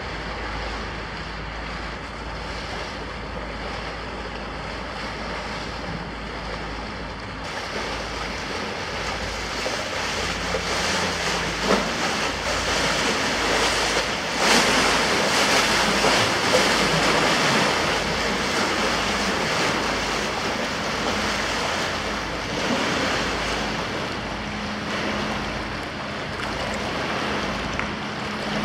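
Rushing water from a passing tanker barge's hull wash, with wind buffeting the microphone over a steady low engine rumble. The rush swells about seven seconds in, is loudest around the middle, and eases toward the end.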